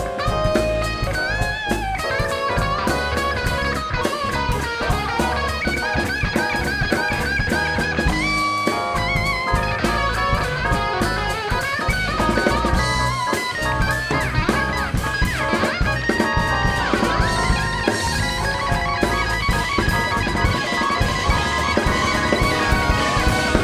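Electric guitar playing a lead line of quick, bending notes over a funk band's drum kit.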